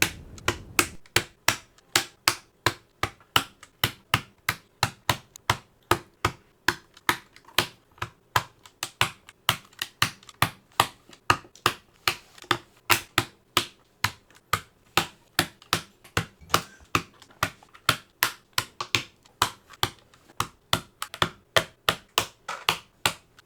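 Unlubed mechanical keyboard switches being pressed one after another into the hot-swap sockets of a Geeky GK61 keyboard, each snapping into place with a sharp click, about three a second.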